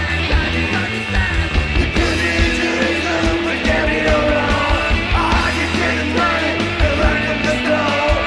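Garage punk band playing loud: electric guitar, bass and drums, with a man singing over them.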